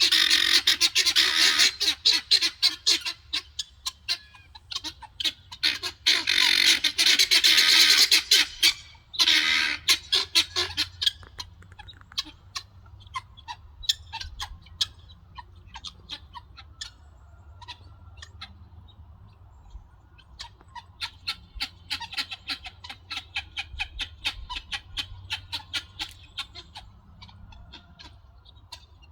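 Guinea fowl calling: loud, rapid, harsh chattering from several birds at once in bouts over the first third, then scattered single short calls, with another chattering bout about two-thirds of the way through.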